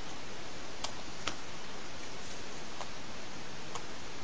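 Steady hiss from a cell phone's microphone, with four faint, light clicks of handling noise spread through it.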